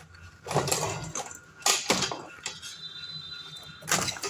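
Plastic clattering and knocking as a digital multimeter in its clear blister pack is handled and shifted on a workbench: a handful of short, sharp clatters.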